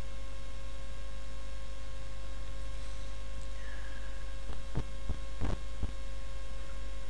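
Steady electrical mains hum on the recording, with a few short sharp clicks between about four and a half and six seconds in.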